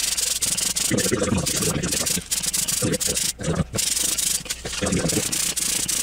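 Metal heatsink base being lapped by hand on 180-grit sandpaper over a glass plate: a rasping rub in repeated back-and-forth strokes. The coarse grit is grinding the uneven base flat so it will make proper contact with the CPU.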